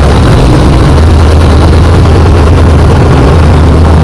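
A heavy engine rumbling steadily, loud and low, like a tank idling.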